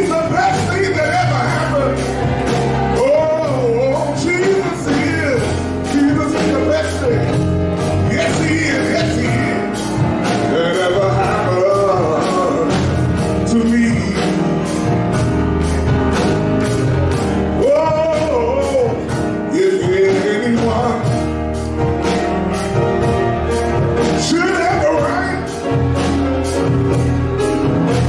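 A man singing a gospel song while accompanying himself on a grand piano, over deep bass notes and a steady beat.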